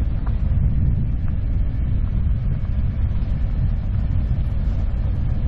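2021 Honda Africa Twin 1100 DCT's parallel-twin engine running as the motorcycle rides down a gravel road, heard as a steady low rumble mixed with tyre and wind noise on the bike-mounted camera.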